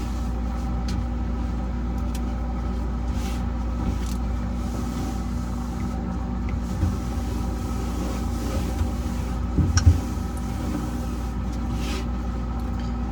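A steady low hum with a few faint clicks, and a louder knock about ten seconds in.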